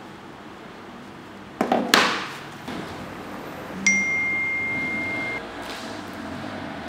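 A mobile phone's message notification: a single clear ding with a sudden start, held for about a second and a half. About two seconds before it come two sharp clatters.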